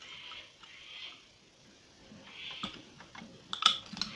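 Small parts of a homemade pocket knife being handled as the blade is pushed back into its housing: soft rubbing with a few light clicks, then a quick cluster of sharp clicks about three and a half seconds in.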